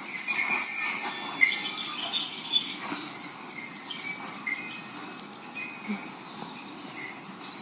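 Steady high chirring of insects, with small bells jingling now and then.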